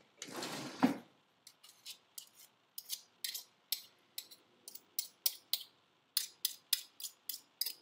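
Metal cutlery clicking together in the hands: a long run of sharp clicks, unevenly spaced at first and quicker, about three a second, near the end. A brief rushing noise comes first.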